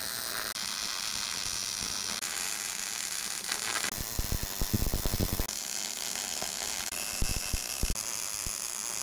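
Electric arc welding on a steel bucket: a steady crackling hiss of the arc with scattered pops, its tone shifting abruptly several times.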